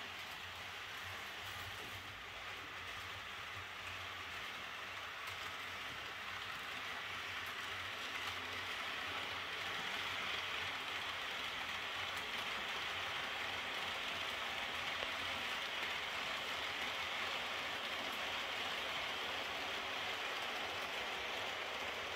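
Model passenger train of ÖBB Eurofima coaches rolling over the track: a steady hiss and rattle of wheels on rails, growing louder over the first ten seconds or so and then holding steady as the train passes close by.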